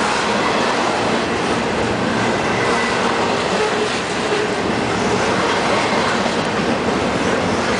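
Canadian Pacific double-stack container train rolling past close by: a steady rumble and clatter of freight-car wheels on the rails.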